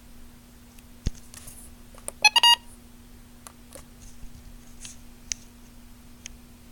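A sharp click, then a quick run of three or four short electronic beeps about two seconds in, with a few faint clicks after. A steady low electrical hum runs underneath.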